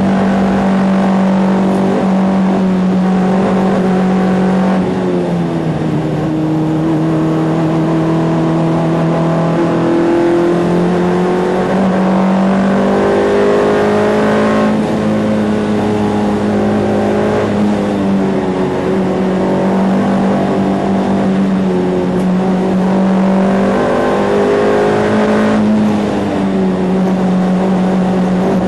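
Ford Fiesta race car's four-cylinder engine heard from inside the car, running hard at high revs. Its note holds steady for stretches, then steps down and climbs back up several times as the driver shifts gears.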